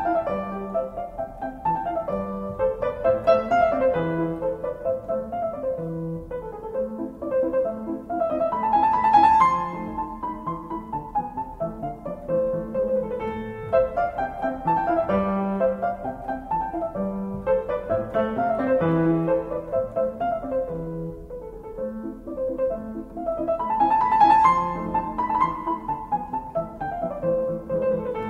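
Background piano music, an instrumental piece of flowing melodic phrases.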